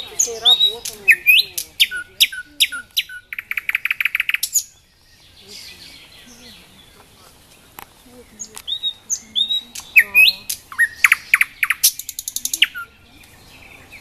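A small songbird singing two phrases of sharp, quick whistled notes a few seconds apart. The first phrase ends in a fast rattling trill.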